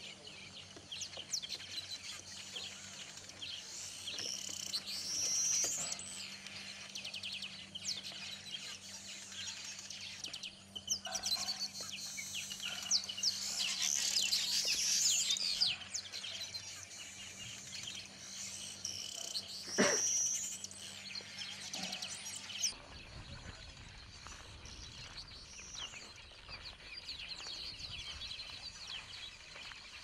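A colony of weaver birds chattering at their nests: many overlapping, quick chirps, trills and whistles. The calling is busiest in the middle, and one louder, sharp call comes about twenty seconds in.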